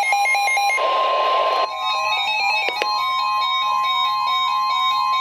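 Electronic melody music. About a second in there is a brief burst of static-like hiss, and then a steady single-pitch alert tone starts under the music: a weather radio's warning alarm tone announcing a flash flood warning.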